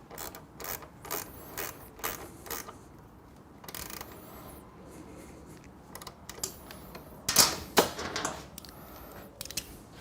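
Ratcheting 12 mm wrench clicking in short runs as it tightens the nut on a motorcycle exhaust mounting bolt, then two louder metal knocks about seven and a half seconds in.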